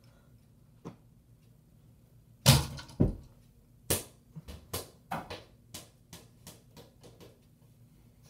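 A basketball thrown at a ceiling fan: two loud thuds about two and a half seconds in, then the ball bouncing on the floor, the bounces coming quicker and fainter as it settles.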